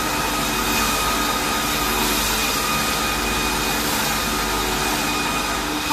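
Factory machinery for grinding and polishing the edges of melamine tableware, running steadily. It makes a constant noise with a low hum and several steady whining tones.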